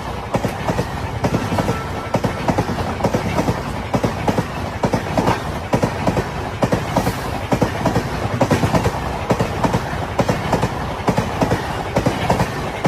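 Palace Queen Humsafar Express passing at speed, its wheels clattering rapidly and steadily over rail joints.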